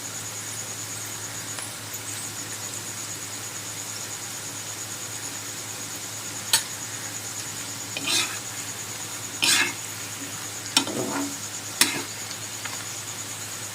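Potato fries sizzling steadily in hot oil. From about six seconds in, a metal utensil stirs them with five sharp clinks and scrapes against the pan.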